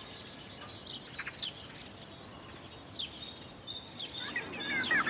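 Ambient birdsong: scattered short chirps over a faint steady hiss, with busier chirping building up near the end.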